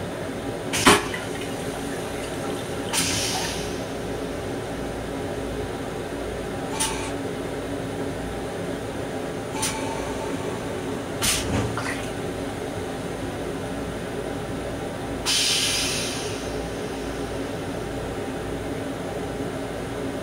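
Stainless steel railcar toilet just after a flush: rinse water swirls and drains from the bowl over a steady background hum. A sharp click comes about a second in, short hisses about 3 and 15 seconds in, the second the louder and longer, and a few fainter clicks in between.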